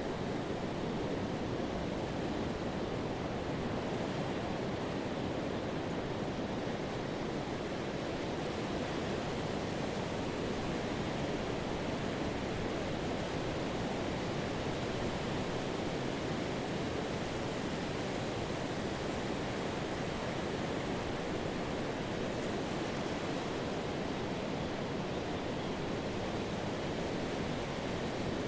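Pacific surf breaking on a sandy beach and foam washing along the shoreline, a steady roar without distinct crashes.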